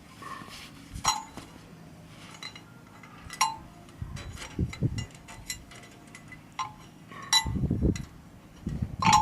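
Metal clinking and jangling of the spare-tire hoist's holding device and cable as it is twisted sideways and worked free of the lowered spare wheel. Scattered sharp clinks with a short ring, a few dull low scrapes or thumps about four and seven and a half seconds in, and a quick flurry of clinks near the end.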